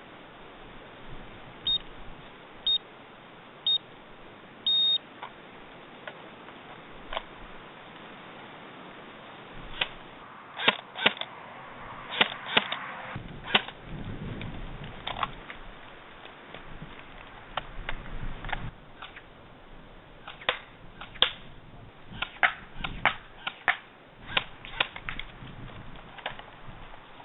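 An electronic start signal of three short high beeps and a longer fourth, then airsoft gun shots: sharp snaps, a few at a time with pauses, as a sport-shooting stage is run.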